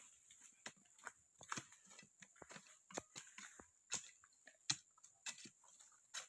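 Near silence broken by scattered faint clicks and taps, a few a second, with no engine running.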